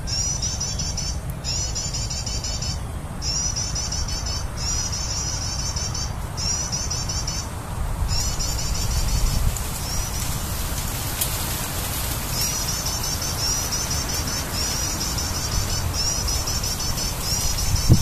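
Prinias (prenjak) calling: rapid high-pitched chirps in repeated phrases of about a second and a half with short gaps, dropping out briefly around the middle. A steady low rumble runs underneath.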